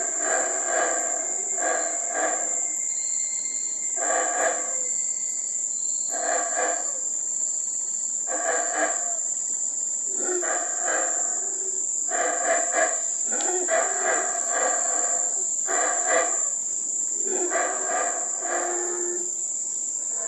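Yucatán black howler monkeys calling: short, deep, guttural calls repeated about once a second with brief pauses, over a steady high-pitched insect drone.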